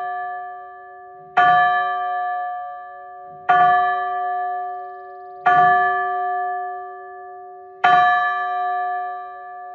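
A rope-rung church bell tolling four times, about two seconds apart. Each stroke rings on and fades under the next. It is a memorial toll, one stroke for each year of a life.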